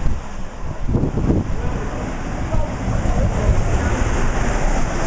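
Wind buffeting the microphone: a loud, rough, low rumble that rises and falls in gusts.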